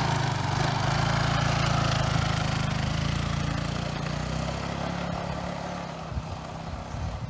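Yamaha Mio scooter's single-cylinder four-stroke engine running as the scooter pulls away and rides off, fading as it goes down the road from about halfway through.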